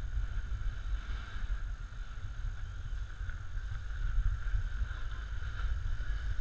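Snowboard sliding down a groomed slope, its base running over packed snow: a steady low rumble with a light scraping hiss above it.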